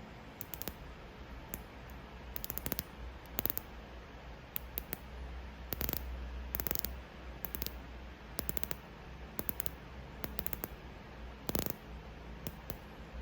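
Tudor Black Bay 41 dive watch's unidirectional rotating bezel being turned by hand, ratcheting in quick runs of sharp clicks with short pauses between the turns.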